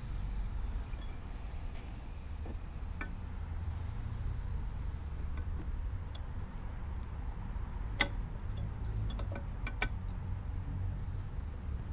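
Light metallic clicks and clinks from a camshaft being set into and turned in the journals of a GM Ecotec L61 aluminium cylinder head. A few faint ticks come first, then one sharper click about eight seconds in and a quick cluster of clicks a second or so later, over a low steady rumble.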